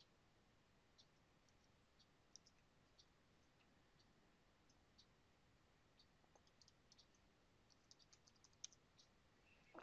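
Near silence with faint computer mouse clicks and keyboard keystrokes: scattered single clicks at first, then a quick run of clicks in the last few seconds.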